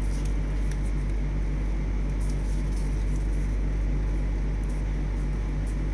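Steady low background hum, with faint rustles and crinkles of a paper strip being folded by hand.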